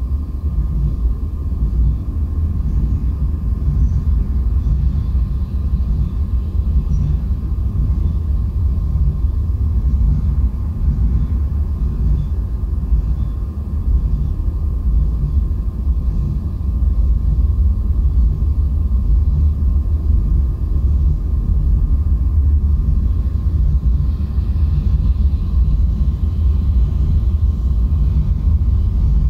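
Steady low rumble, dense and unbroken, with a faint pulsing throb in it.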